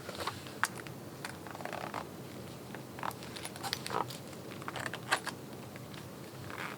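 Handling noise from a shiny black platform knee-high boot being pulled on and fitted: scattered small clicks and brief rustles, the loudest click about five seconds in.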